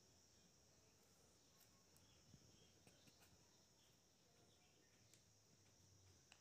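Near silence: a faint steady high-pitched hiss with a few faint soft ticks.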